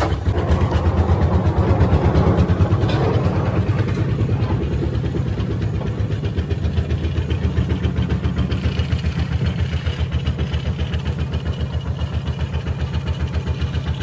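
An engine idling nearby, a steady low throb with even, rapid pulses that holds at one speed.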